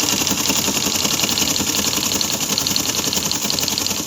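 Teletype Model 33 KSR's printing mechanism clattering steadily as it prints at 110 baud. The clatter cuts off suddenly near the end.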